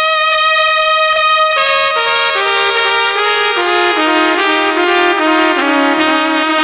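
Recorded music: a trumpet section holds one high note, then plays a stepwise descending run in harmony. This is the brass introduction to a salsa-style Latin dance tune.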